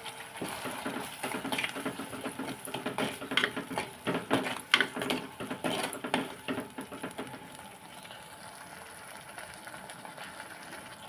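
A spoon stirring and scraping thick masala in a clay pot: an irregular run of scrapes and light clinks that stops about seven seconds in.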